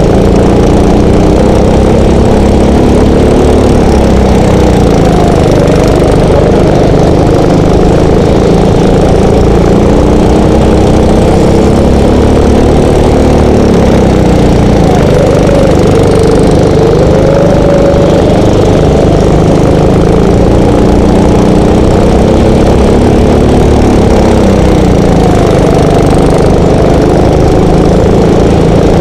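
Go-kart's small petrol engine running hard, close to the microphone. Its pitch drops as it slows for the corners and climbs again as it accelerates out of them, several times over.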